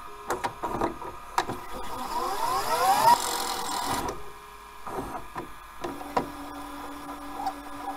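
Sound-effect sting over an animated horror logo. Scattered sharp clicks and rattling come first, then a rising sweep with a building hiss that cuts off sharply about four seconds in. After that come more clicks and a steady low hum.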